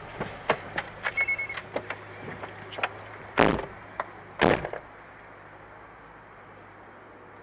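Inside a car: a run of clicks and a short high electronic chime, then two loud thumps about a second apart, typical of a car door being opened and shut. After that only a steady low hum remains.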